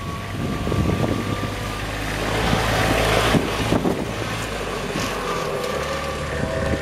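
Kubota RTV utility vehicle's three-cylinder diesel engine running as the vehicle pulls away, with a louder rushing noise about two to four seconds in, then a steady running note near the end.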